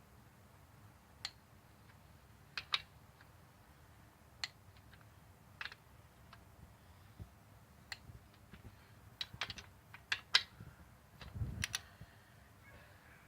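Scattered, irregular light clicks and taps of hand tools and head bolts being worked on an engine's cylinder head, some in quick little runs, with a dull thump near the end.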